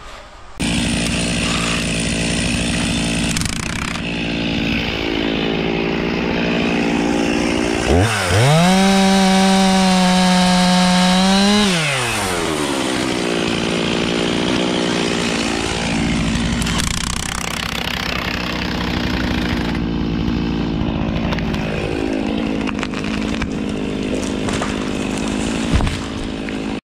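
Stihl two-stroke chainsaw running for the whole stretch. About eight seconds in it is revved to a high, even pitch for some four seconds, then the pitch falls away and it runs on at a rougher, lower note.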